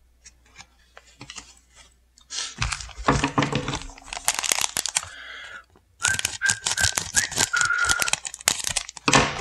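Foil trading-card booster pack crinkling and crackling as it is picked up, handled and opened, after about two seconds of faint taps. A sharp knock near the end.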